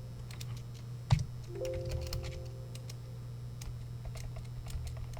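Scattered computer keyboard and mouse clicks over a steady low electrical hum, with a single thump about a second in and a brief low chime-like tone just after it.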